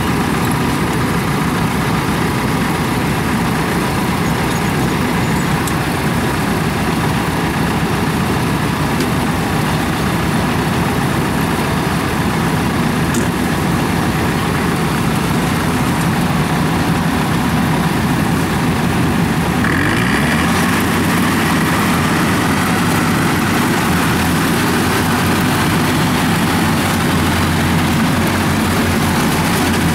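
Engines of a rice combine harvester and a tracked rice-carrying crawler running steadily at close range. About two-thirds of the way in the sound shifts, with a higher whine joining the steady low hum.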